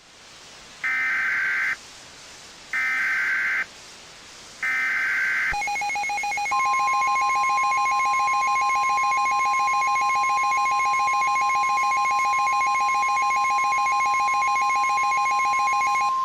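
Three short bursts of EAS SAME header data tones, each under a second, with short gaps between them. Then a pulsing alert buzz starts, and about a second later the long steady 1050 Hz weather-radio warning tone joins it and holds until both cut off at the end.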